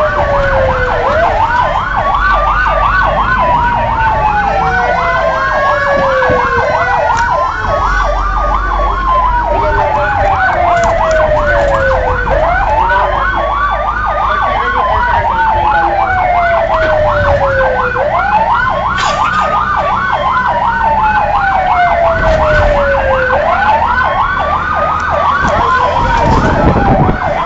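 Fire engine sirens running together: a slow wail that rises quickly and falls slowly about every six seconds, over a fast, continuous yelp, with a low rumble beneath.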